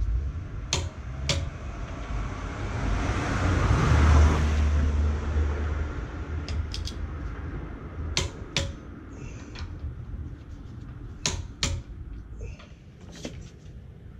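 Sharp metal clinks, mostly in pairs, from a hand tool on the wheel's lug bolts as a car wheel is bolted back on. A broad rush of noise with a low rumble swells and fades about 3 to 6 seconds in.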